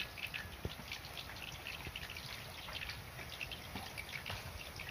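Breadfruit frying in hot oil in a wok: a fast, irregular crackle and spitting of the oil.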